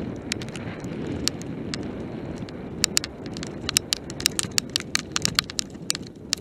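Mountain bike descending a rough dirt and gravel trail, heard from the bike: a steady rumble of tyres and wind, with rapid sharp clicking rattles from about three seconds in as it runs over loose stones.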